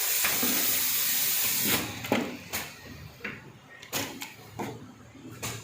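Cup filling and sealing machine: a loud steady hiss that cuts off after about two seconds, then about six sharp clicks and knocks spaced roughly half a second apart.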